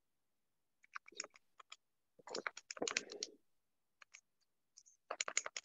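Typing on a computer keyboard: irregular runs of quick key clicks, in bursts about a second in, in the middle and near the end.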